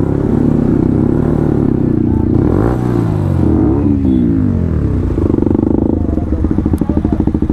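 Yamaha MT-15's single-cylinder engine with a full-system exhaust, running at low speed on the road. The revs rise and fall once about three seconds in, then settle into an even, pulsing low-speed run.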